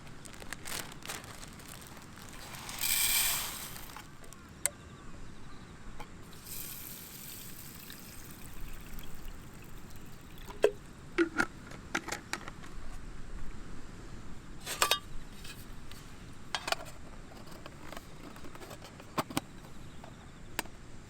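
Liquid poured briefly about three seconds in, followed by scattered light clinks and taps.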